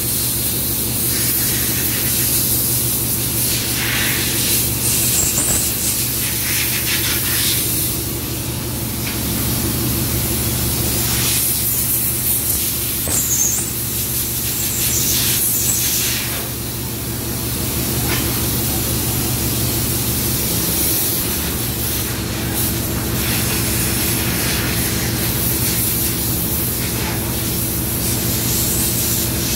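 Steady machinery noise of a ship's engine room: a constant low hum under a loud, even hiss, with occasional brief handling rustles.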